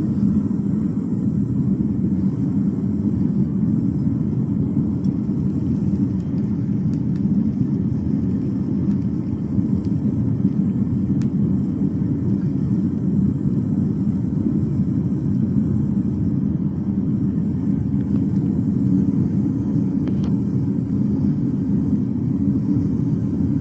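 Home foundry furnace burner running with a steady low roar.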